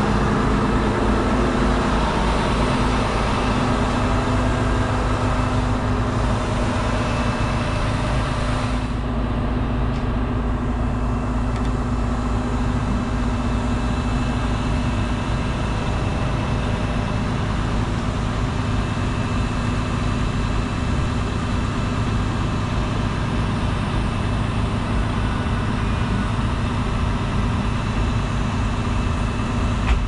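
Diesel engine of a Zoomlion 70 m truck-mounted concrete pump on a Mercedes-Benz Arocs chassis, running steadily to drive the hydraulics while the boom unfolds. The high hiss thins out about nine seconds in.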